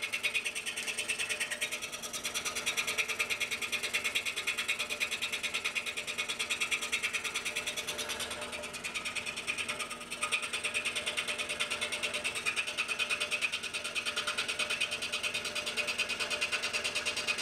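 Scroll saw cutting a polycarbonate plate: a steady, fast-repeating mechanical buzz from the reciprocating blade, briefly quieter about halfway through.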